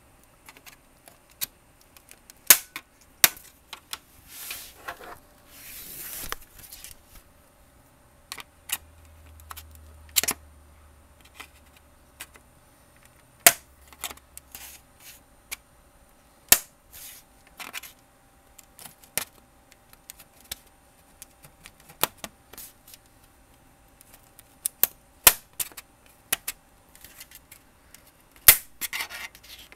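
Plastic snap clips of a Dell 1704FPVt LCD monitor's bezel clicking and cracking loose as a flat screwdriver pries along the case seam: irregular sharp clicks, with a few short scrapes of the blade sliding along the plastic.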